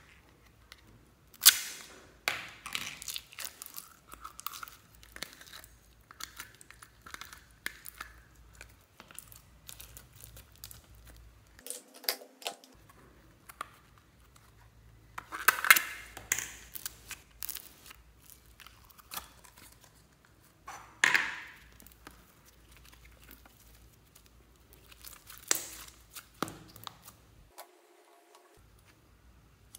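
Sticky slime crackling and popping as it is pulled and squeezed out of small plastic tubs onto other slime, with irregular clicks and taps from the plastic containers.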